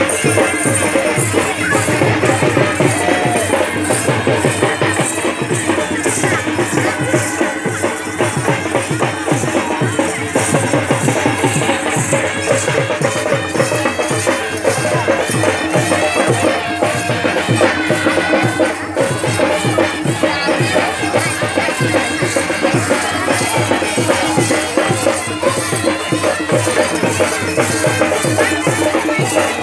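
Folk festival music for a procession dance: fast, steady drum beats with shaken rattle-like percussion over sustained tones.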